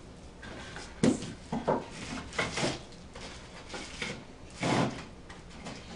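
Pieces of old barnboard being handled and set against each other: a few separate wooden knocks and short scrapes, the longest near the end.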